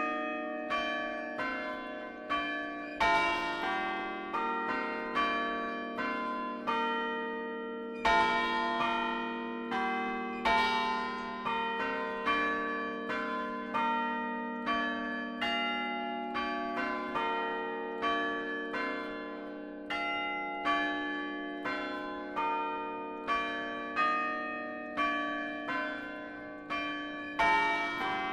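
Church tower chime of tuned bells played by a chimer, striking a melody one bell at a time, each note ringing on under the next at roughly one to two strokes a second.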